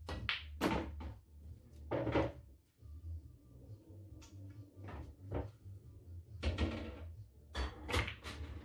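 Pool balls being played: the cue tip striking the cue ball, sharp clacks of ball on ball and cushion, and a ball dropping into a pocket with a rolling rumble. Two shots about seven seconds apart, with a few lighter knocks between them.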